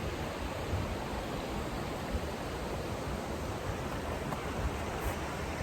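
Steady rushing of the Gale River's flowing water during the late-winter thaw.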